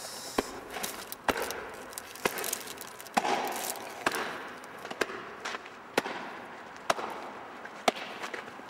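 Sharp knocks or blows repeating evenly, about one a second, over a steady background hiss.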